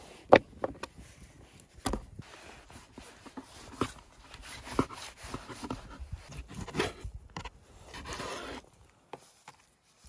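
Large kitchen knife cutting raw beef on a wooden cutting board: a run of sharp knocks of the blade on the board and scraping strokes as it slices, with the meat being pressed and shifted by hand.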